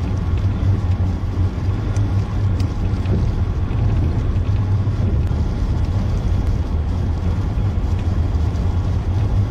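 Loud, steady rumbling noise, heaviest in the low range, with no distinct events in it.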